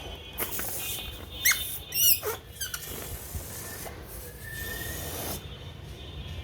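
Rubber balloons squeaking as they are handled, with a cluster of short squeaks that slide up and down in pitch about one and a half to three seconds in, over a hissy rustle.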